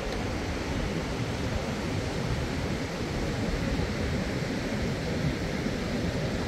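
Wind buffeting the microphone in an uneven low rumble over the steady hiss of distant surf on an open sandy beach.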